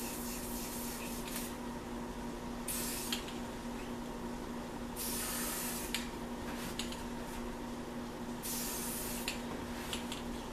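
Aerosol spray-paint can hissing in short bursts: one ending about a second in, then three more, the longest about a second, with light clicks between. A steady low hum lies under it all.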